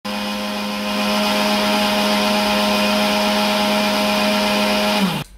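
Electric mixer grinder running on shredded coconut to make coconut milk: a steady motor whine that gets louder about a second in, then is switched off near the end, its pitch falling away as the motor spins down.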